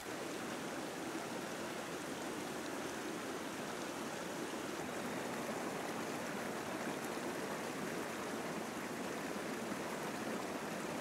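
Steady rushing of a river: an even, unbroken wash of flowing water.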